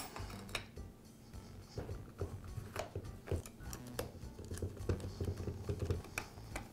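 Light clicks, taps and scraping of a steel saw shoe being fitted to the front of a reciprocating saw, then a hand screwdriver turning its retaining screw.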